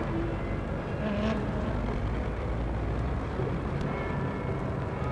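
Steady background rumble of city traffic, with a brief faint tone about a second in.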